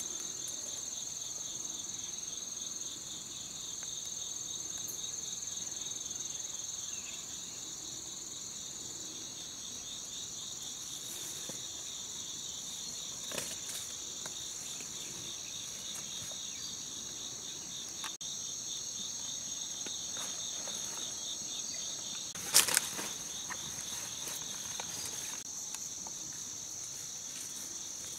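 A steady chorus of insects trilling in two layers, a high even note over a lower rapidly pulsing one. Two short knocks cut through it, the louder one about two-thirds of the way through.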